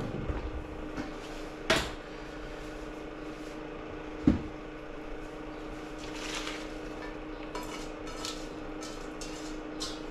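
Cookware being handled: a metal colander and a saucepan knocking and clinking as spinach is put into the pan, with one loud knock about four seconds in and lighter clicks near the end, over a steady low hum.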